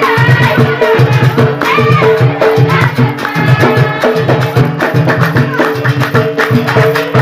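Amazigh ahwash folk music: frame drums beating a steady, even rhythm under group singing.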